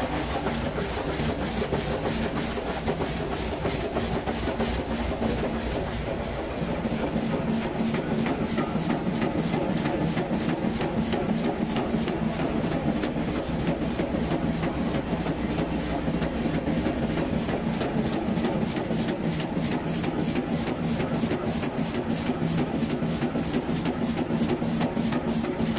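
Roll die-cutting machine running in production, feeding a paper web and die-cutting paper-cup blanks with a fast, even, rhythmic clatter of press strokes over a steady motor hum.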